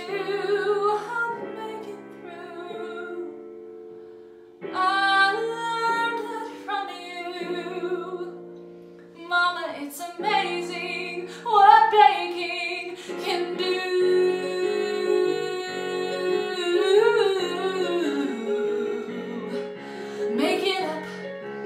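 A woman singing a slow show-tune ballad over sustained instrumental chords, breaking off briefly about four seconds in before the melody resumes and builds.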